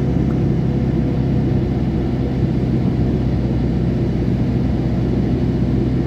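Car engine and road noise heard from inside the cabin while driving on a highway: a steady low drone.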